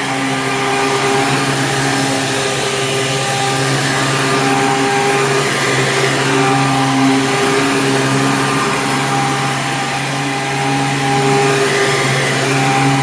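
Hoover Sprint 12 amp upright vacuum cleaner running steadily, its motor giving a constant hum over a broad rushing hiss.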